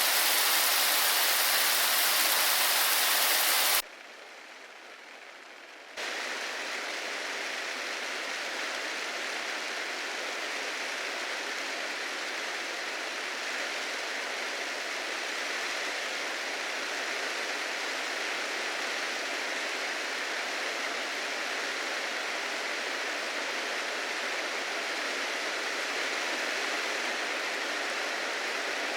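Recorded heavy rain, a loud bright hiss, that cuts off abruptly about four seconds in. After about two seconds of faint hiss, a softer, steady rain track begins and runs on.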